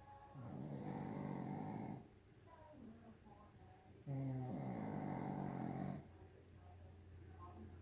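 Pug snoring in its sleep: two loud, rasping snores of about two seconds each, about four seconds apart, with quieter whistling breaths between them.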